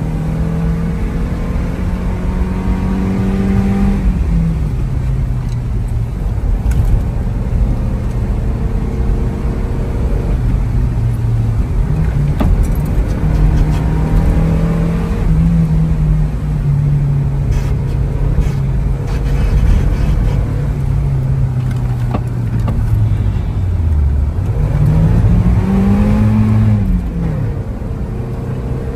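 Car engine heard from inside the cabin, driven hard on a wet road: its note holds steady for long stretches, steps down and up at a few points, and near the end drops and rises again as the driver lifts off and accelerates, over a steady rumble of tyres and rain spray.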